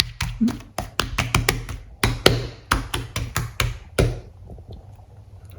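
Homemade glue-and-contact-solution slime being squeezed and stretched by hand, giving a quick, irregular run of sharp clicks and pops that stops about four seconds in.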